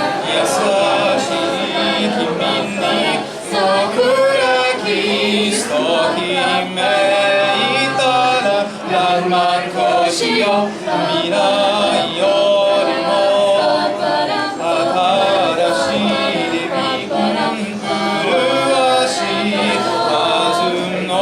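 A cappella vocal group singing a song in several-part harmony, with no instruments.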